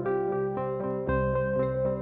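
Background music: a gentle keyboard tune with a steady run of notes and a deeper bass note coming in about a second in.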